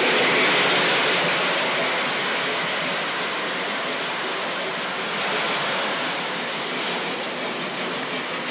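O-gauge toy train running on its track, a steady whirring rumble of motor and wheels. Above it, a very high chirping repeats several times a second.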